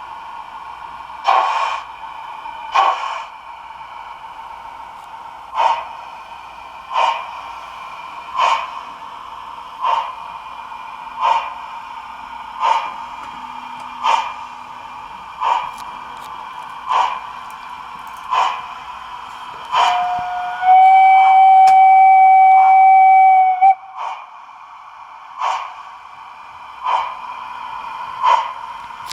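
Gauge 1 model railway sound: a steady whine with a short sharp sound repeating about every one and a half seconds. About two-thirds of the way through, a loud steam whistle blows steadily for about three seconds.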